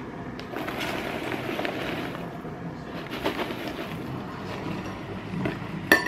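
A crinkly snack bag rustling as ready-popped popcorn pours into a stainless steel bowl, followed by a few light ticks and one sharp clink just before the end.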